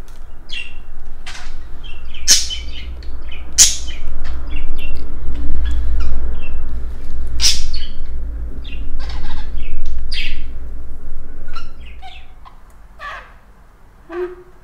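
Lutino budgerigar chattering: a quick, irregular run of short chirps that thins out near the end, over a low rumble.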